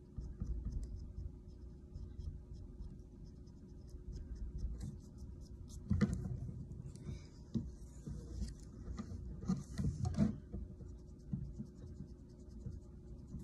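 Pencil eraser scrubbing over a painted plastic model part, lifting the paint off a hairspray undercoat to make chips. A faint, continuous rubbing with a few louder scuffs and knocks around the middle.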